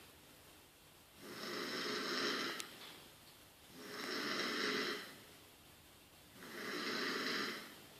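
Snoring in deep sleep: three long, noisy breaths at an even pace, about two and a half seconds apart, with a faint click during the first.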